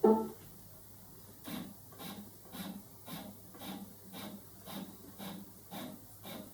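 A small robot arm's motors moving it in short steps, about twice a second and about ten times in all, as it is jogged along in 10 mm increments. A brief louder sound comes right at the start.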